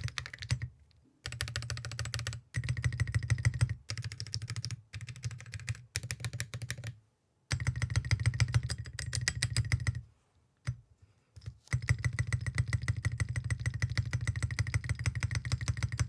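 Fast typing on a Geonworks Glare TKL mechanical keyboard fitted with Awekeys Copper Eagle full metal (copper-plated cupronickel) keycaps, a deep-sounding keystroke sound. The typing comes in rapid runs broken by several brief pauses, the longest about two-thirds of the way in.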